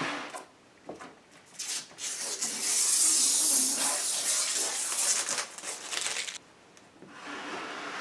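Hands handling a desktop PC case, rubbing and sliding against it, heard as rough scraping hiss. It is loudest for about four seconds in the middle, stops abruptly, and comes back more quietly near the end.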